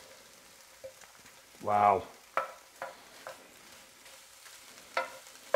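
Seasoned shrimp sizzling quietly in a 1970s electric skillet as they are stirred with a plastic slotted spoon. The spoon knocks and scrapes against the pan five times, in the second half.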